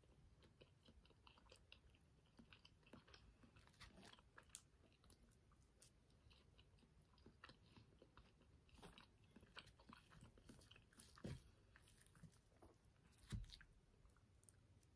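Faint chewing of a soft, fluffy pancake, with small wet mouth clicks scattered throughout. Two soft dull knocks about eleven and thirteen seconds in.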